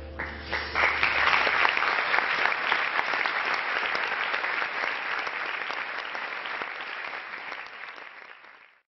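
Audience applauding at the end of a jazz piano trio piece, with the band's final chord dying away under the first claps. The applause swells within the first second, slowly fades, and cuts off abruptly just before the end.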